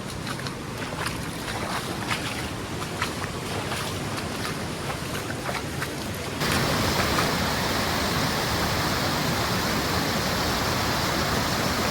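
Steady rush of a fast-flowing stream, with scattered short clicks over it. About six seconds in the sound jumps abruptly to a louder, denser, steady rush of water.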